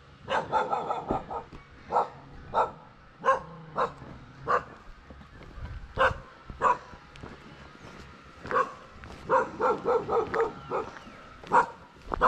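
Stray dog barking again and again at a passer-by: short single barks with quick flurries near the start and a little past the middle.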